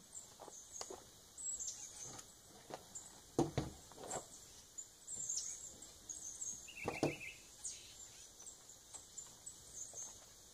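Small birds chirping in short high repeated calls, with a few knocks or thumps, the loudest about three and a half and seven seconds in.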